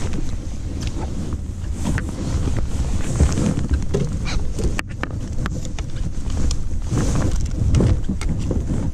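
Wind buffeting the microphone with a dense low rumble, while a fish is fought from a small boat, with scattered short clicks and knocks throughout.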